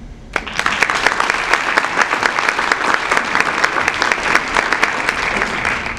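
Audience applauding: dense, steady clapping that breaks out about half a second in and begins to fade near the end.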